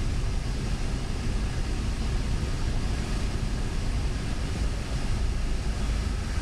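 Steady engine drone and airflow noise inside the cabin of a single-engine Cessna light aircraft, even throughout.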